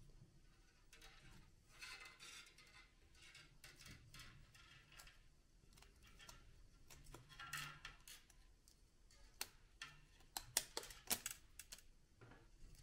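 Faint handling noise of copper wire being wound by hand onto a 3D-printed plastic coil form: soft scraping and rustling, with a quick run of sharp clicks near the end.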